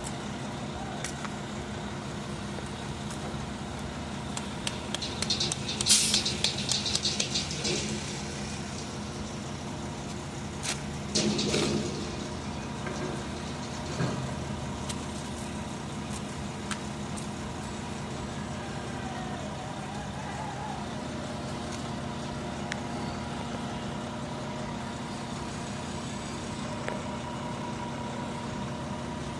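An engine running steadily, with short bursts of clattering about six and eleven seconds in.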